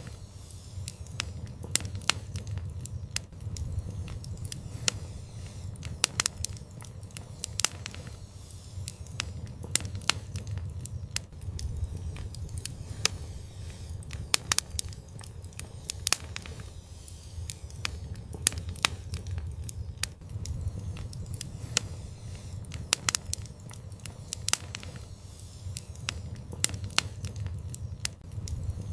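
Wood fire crackling and popping, with sharp irregular pops over a steady low rumble of burning.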